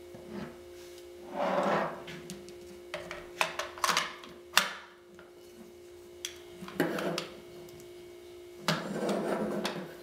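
Upper and lower receivers of an HK416 .22 rifle being handled and fitted together: scraping and rubbing of the parts, with a cluster of sharp clicks and knocks about three to five seconds in.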